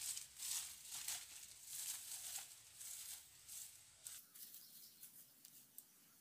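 Rustling footsteps through dry vegetation, about two a second. After about four seconds they stop and only faint scattered ticks remain.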